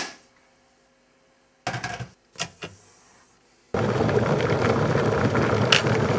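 Stainless electric kettle: two short clatters, then from about four seconds in the steady rushing of water coming to the boil, with a sharp click near the end as the switch flips off at the boil.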